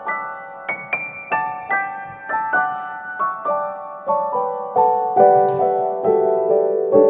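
Background piano music: a steady run of single notes, about three a second, growing louder in the second half.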